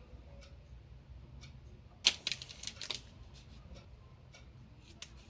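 Crinkly candy wrapper being unwrapped: sparse faint crackles, with a burst of sharp crinkling about two seconds in.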